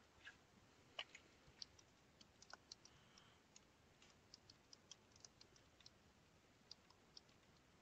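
Faint, irregular clicking of a computer keyboard being typed on, several keystrokes in quick runs, over near-silent room tone.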